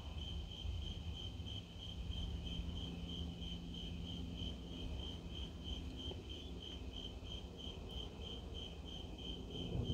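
Crickets chirping in a steady, even rhythm of about four chirps a second, with a low rumble underneath.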